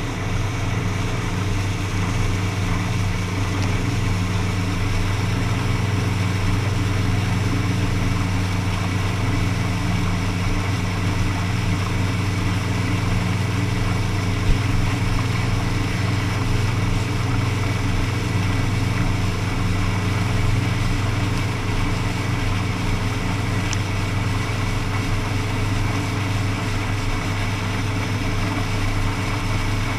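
Motorboat engine running steadily at speed, with water spray rushing along the aluminium hull. A single sharp knock about halfway through.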